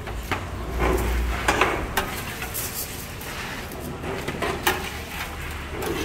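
Metal spatula clinking and scraping against a steel roasting pan and foil platters as cooked meat is served out: sharp knocks at irregular intervals over a steady low hum.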